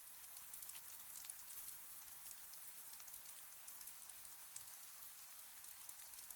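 Faint, steady rain with scattered individual drops ticking, described as gentle rain on a cabin window.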